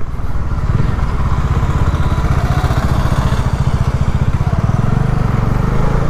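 Bajaj Dominar 400's single-cylinder engine running with a steady, rapid beat.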